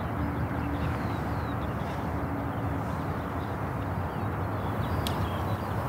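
Outdoor ambience: a steady background rumble with faint bird chirps, and a single click about five seconds in.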